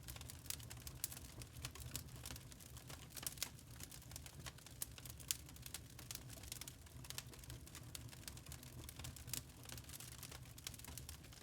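Wood log fire crackling in a fireplace: irregular sharp pops and snaps of burning wood, several a second, over a low steady rumble.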